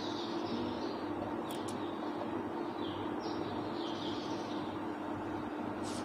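Birds chirping in short high calls every second or so over a steady low room hum, with a couple of light clicks about a second and a half in.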